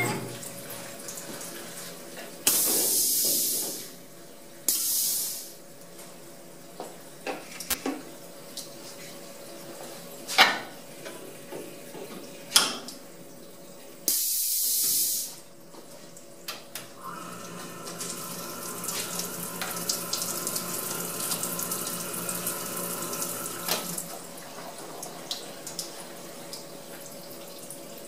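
Short bursts of hissing spray inside a CNC mill enclosure, three of them, the longest over a second, with a few sharp clicks and knocks in between. About two-thirds of the way through, a steady hum with a light hiss runs for several seconds, then drops away.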